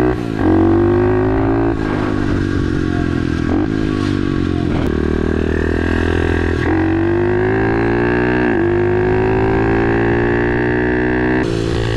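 An SSR 110 pit bike's small single-cylinder four-stroke engine accelerating hard. Its pitch climbs, then drops back as it shifts up, about four times.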